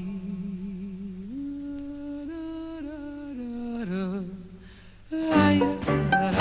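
A lone male voice hums a slow tune in long held notes with vibrato, unaccompanied. About five seconds in, the full band comes in loudly.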